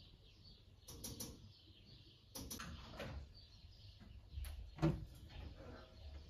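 A few light knocks and clicks, the loudest about five seconds in.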